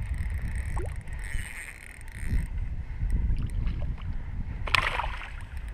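Wind buffeting the camera microphone in a steady low rumble, over water around a small boat, with one short sharp noise a little before the end.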